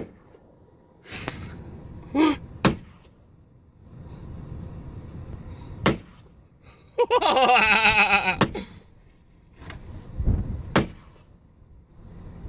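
A handgun fired one shot at a time, about six sharp shots a second to three seconds apart. A loud whooping yell comes in the middle, and a short rising cry comes shortly after the first shots.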